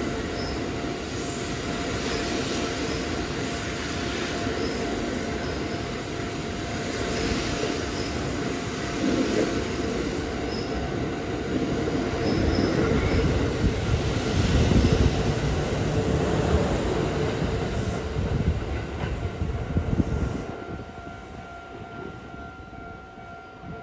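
Kintetsu electric train running past close by along the platform, its wheels rumbling on the rails under a thin steady tone. The noise swells to its loudest a little past halfway, then fades quickly as the last cars pass.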